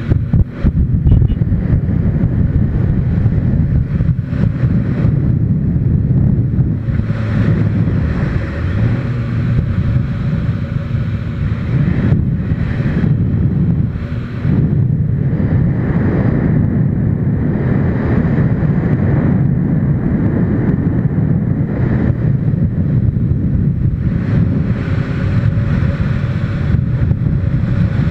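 Heavy wind noise buffeting the microphone of a camera on a moving motorcycle, over the motorcycle's engine running at road speed, its note stepping up and down in pitch as the speed changes.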